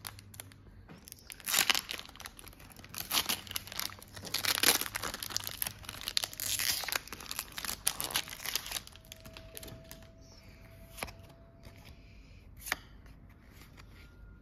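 Foil wrapper of a Pokémon trading-card booster pack being torn open and crinkled in a run of crackling, rustling bursts. This is followed by quieter handling with a couple of short sharp clicks near the end.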